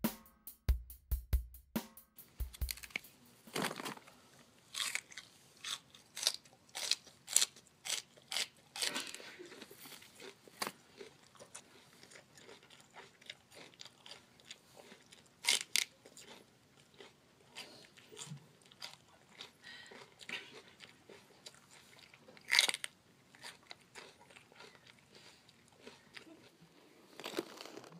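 Loud crunchy eating close to the microphone: irregular sharp bites and crunches, several seconds apart, with quieter chewing between.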